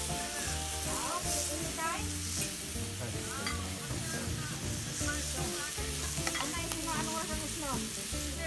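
Meat sizzling on the steel griddle ring of a wood fire pit, with metal spatulas and tongs scraping and turning the slices. Background music with steady held notes plays underneath.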